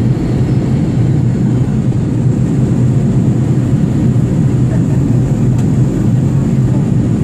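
Steady, unchanging drone of an airliner in flight: engine and airflow noise heavy in the low end.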